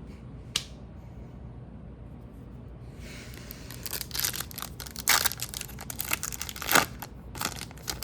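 A hockey card pack's wrapper being torn open and crinkled, with cards rustling, starting about three seconds in after a single click; the crackling comes in uneven loud bursts.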